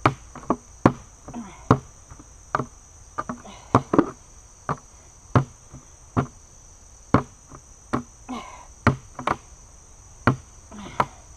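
A Glock 78 field knife's carbon steel blade stabbing repeatedly into the side of a plastic bucket. It lands as sharp knocks, about one or two a second, at an uneven pace.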